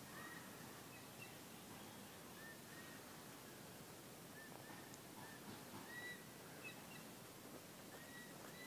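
Near silence: faint background hiss with short, faint, high chirps of distant birds scattered throughout.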